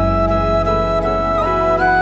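Background music: a slow melody holding long notes over steady low chords.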